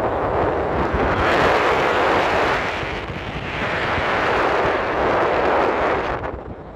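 Wind rushing over the microphone of a camera carried in paragliding flight. The rushing noise swells twice and falls away sharply near the end.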